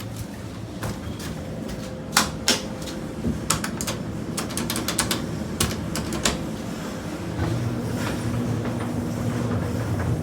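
A run of sharp mechanical clicks and knocks, irregular and spread over several seconds, with a low steady hum coming in about seven and a half seconds in.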